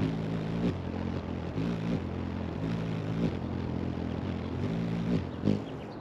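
A hummingbird's wings humming as it hovers. It comes in spells of about a second, and the pitch bends at the end of each spell as the bird shifts position.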